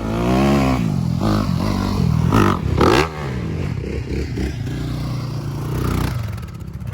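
Single-cylinder off-road engine revving hard, its pitch rising and falling with the throttle. It is loudest about three seconds in, then settles to a steadier note and eases off near the end.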